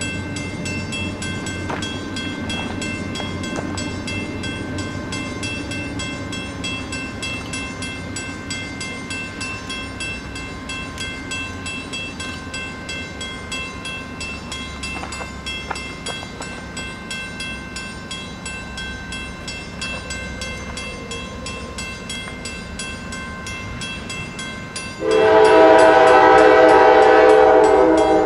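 A train running with a steady rumble and a regular clatter. About 25 seconds in, its horn comes in loud, a chord of several notes held for about three seconds.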